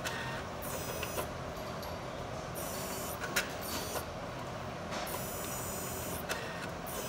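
Thermo AI 1310 autosampler on a TRACE 1300 gas chromatograph at work: its motors whir in four short high-pitched spells as the tower swivels and the syringe moves, with sharp mechanical clicks between them. A steady hum runs underneath.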